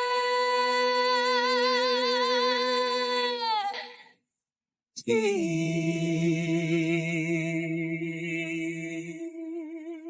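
A singer holds a long final note with a slow vibrato and little accompaniment, fading out about four seconds in. After a short silence, another long sung note with vibrato begins over a lower steady tone that stops near the end.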